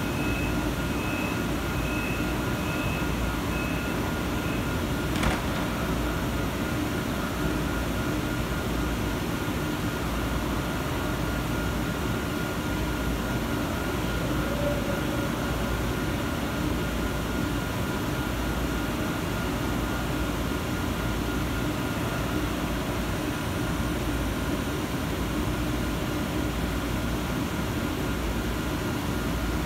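ICE high-speed train standing at the platform, its cooling and air-conditioning running with a steady hum under the station roof. In the first four seconds a run of quick beeps sounds, the door-closing warning before departure, followed by a single sharp knock about five seconds in as a door shuts.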